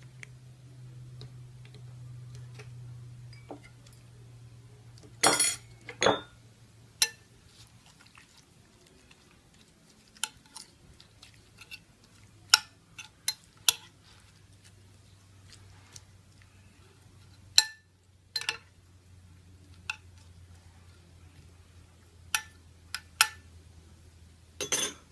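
A metal utensil clinking and scraping against a glass baking dish while stirring a marinade, in irregular single clinks and short clusters, over a faint low hum.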